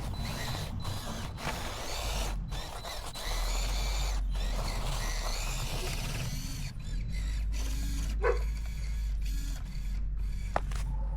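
Redcat Ascent-18 1/18-scale RC rock crawler's electric motor and drivetrain gears whining as it crawls across snow, the whine wavering in pitch with the throttle.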